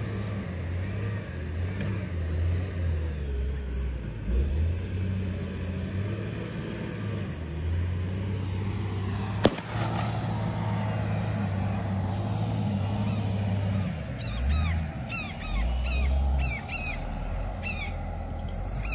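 Low, steady engine rumble of heavy earthmoving machinery working in the distance, with one sharp crack about halfway through. Birds chirp over and over in the last few seconds.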